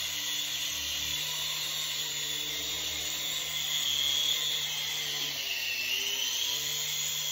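Toy remote-control helicopter's small electric motor and rotors whirring in flight, a steady high whine that dips in pitch about five and a half seconds in and rises again.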